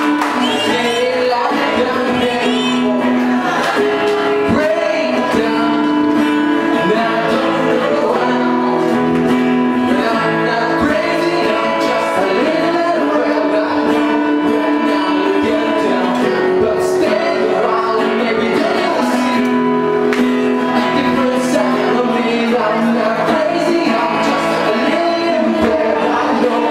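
A live band playing a song, with guitar and a singing voice, loud and continuous.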